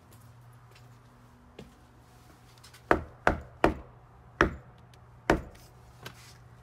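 Knocking on a front door: three quick knocks about three seconds in, then two slower ones, followed by a faint tap.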